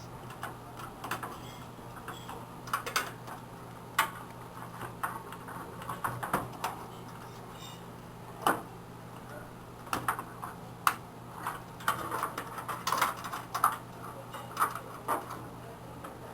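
Cables and their plastic connectors being pulled out inside a desktop computer's system unit, including the IDE ribbon cable: irregular clicks, taps and knocks of plugs and the metal case.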